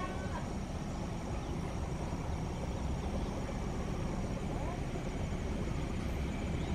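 CC 201 diesel-electric locomotive engine hauling a passenger train, a steady low rumble as it approaches.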